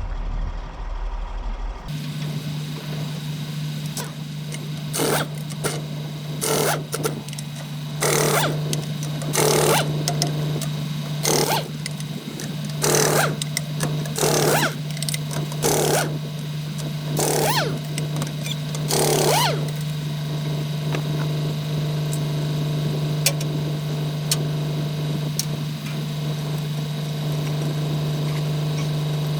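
Semi truck's engine idling with a steady hum, building air pressure for the tire-changing airline. Over it come about a dozen short, loud bursts, roughly one every second and a half, from about five to twenty seconds in.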